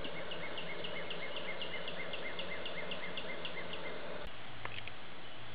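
Outdoor ambience with a rhythmic chirping call, about three chirps a second, that stops about four seconds in, over a steady low hum.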